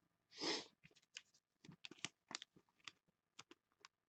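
Faint soft ticks and rustles of trading cards being shuffled and slid in the hand, with one short hiss about half a second in.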